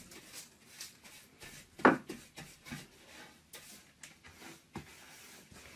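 Rubbing and scraping on wood by hand: a string of short strokes, the loudest about two seconds in.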